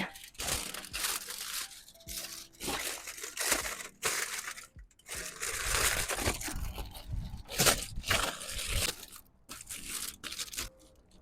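Packaging being handled, crinkling and tearing in irregular bursts with short pauses.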